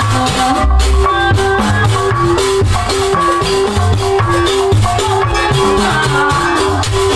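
Live Sundanese gamelan music for bajidoran: kendang drum patterns under a metallophone playing a steady run of short repeating notes.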